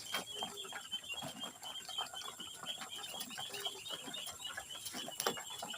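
Pigeons pecking at scattered feed, a rapid irregular pattering of small taps, with a dense high chirping running behind.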